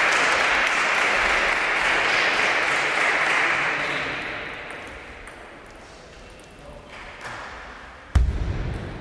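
Crowd noise in a large sports hall fades away over the first half. Then table tennis balls click against bats and the table in a rally. A sudden heavy thump near the end is the loudest sound.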